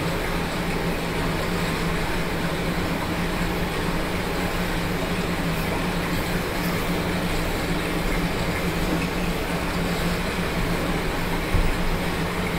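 Electric fan running steadily: an even rushing of air over a constant low motor hum.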